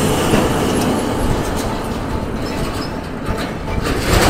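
Small die-cast toy dump truck pushed by hand, its wheels rolling along a tabletop road with a continuous rumble, and a light knock near the end.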